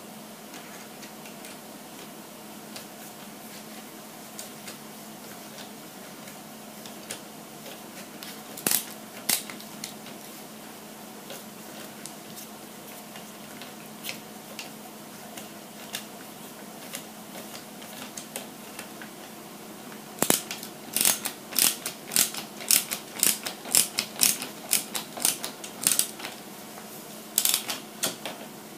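Small metal tools and parts clicking and clinking as an RC truck's rear leaf spring and axle are fitted by hand. There are a few isolated clicks, then a quick run of sharp clicks, about two a second, near the end, over a steady low hum.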